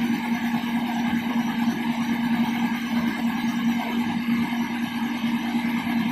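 Heavy engine running steadily at constant speed, a continuous hum with no change in pitch.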